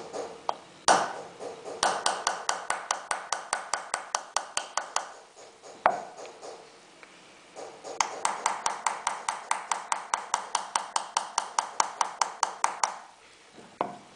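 Engraving chisel tapped with a small hammer into a silver plate bedded in pitch: rapid, even metallic taps with a light ring, about eight a second, in two runs of a few seconds with a pause between and a single louder knock before each run.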